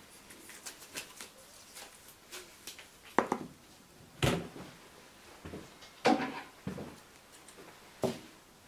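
Handling sounds on a worktable: a handful of short, sharp knocks and clicks a second or two apart as a nylon webbing strap is laid out, a wooden folding ruler is set down beside it and scissors are picked up.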